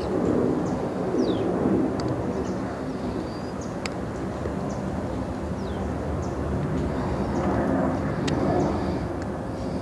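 A dove cooing in low, soft phrases a few times, with small birds giving short falling chirps and a few sharp clicks, over a steady low rumble.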